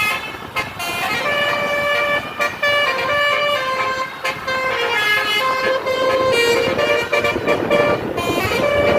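Tour bus's 'telolet' multi-tone horn playing a tune: a run of held notes that step up and down in pitch, with a few short breaks.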